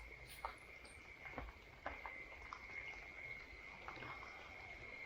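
An insect's steady high-pitched drone, one thin unbroken tone, with scattered faint clicks and ticks over it.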